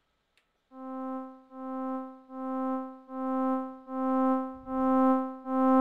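Logic Pro's ES1 software synthesizer playing the same note C seven times, about one note every 0.8 s, starting a little under a second in. Each note swells in gently because of the long amplifier attack time, and each is louder than the one before as the note velocity rises.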